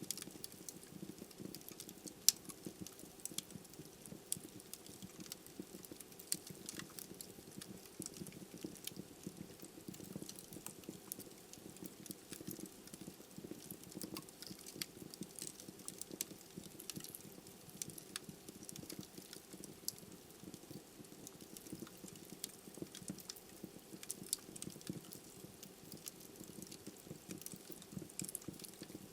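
Wood fire burning in a fireplace: a low steady hiss and rumble of flames with frequent small, irregular crackles and pops from the logs, one sharper pop about two seconds in.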